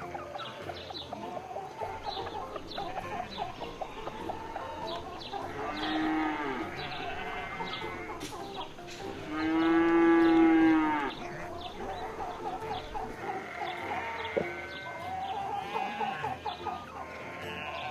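Cattle mooing: a cow lows about six seconds in, gives a longer, louder moo around the middle, and lows again near the end. Many short chirping calls run underneath throughout.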